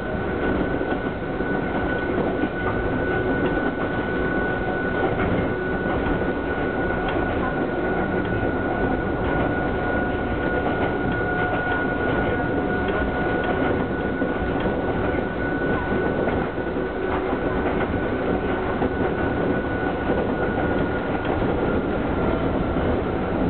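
Hokuriku Railroad Ishikawa Line electric train running along the track, heard from inside the driver's cab: continuous running noise at a steady speed, with a steady high whine over it.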